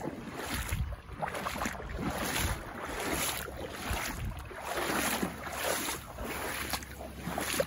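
Rubber boots wading through shallow floodwater and wet grass, a splash and swish with each stride, about one step a second.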